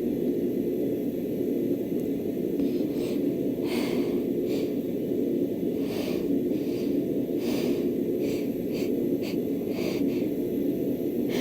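A woman's short, irregular breaths and sniffs, hitching between dust-triggered sneezes, over a steady low background hum.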